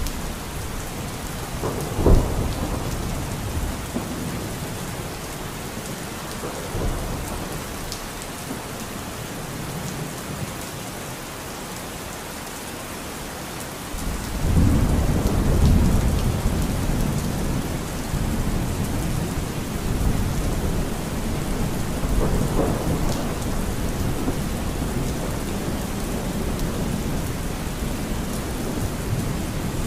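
Steady rain with rolling thunder: a sharp crack about two seconds in, and a long low rumble building about halfway through and swelling again later.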